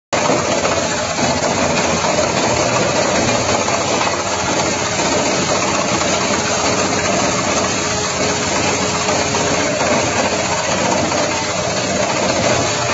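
Mobile wood chipper's engine running steadily, a loud continuous drone.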